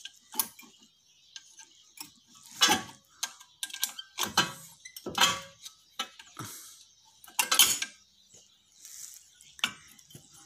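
Metal tools knocking and clinking on a disc brake caliper as the brake pads are tapped out with a hammer and pried out with a screwdriver: several sharp separate knocks, some ringing briefly, with smaller clicks between.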